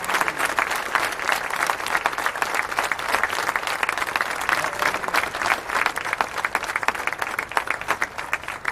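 Large crowd of runners clapping and applauding, thinning out near the end.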